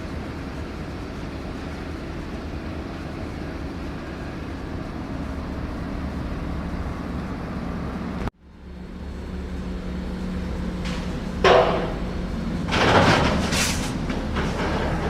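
Steady low engine rumble of RC construction machinery that cuts off abruptly about eight seconds in, then fades back in with a steady hum. Two louder rushing bursts follow near the end.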